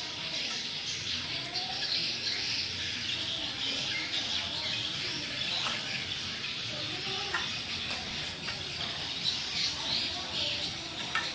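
Many birds chirping steadily, with a few sharp clicks.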